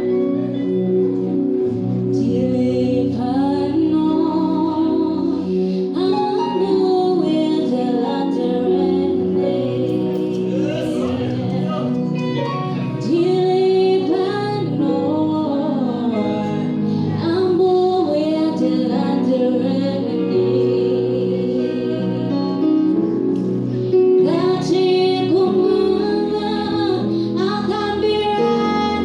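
Music with a woman singing a melody over a sustained instrumental accompaniment.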